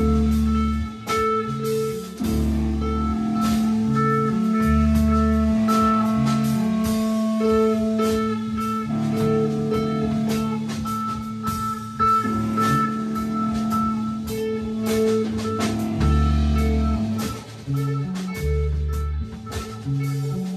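A band playing live: electric guitar over a drum kit and bass, with a long low held note underneath that drops out near the end.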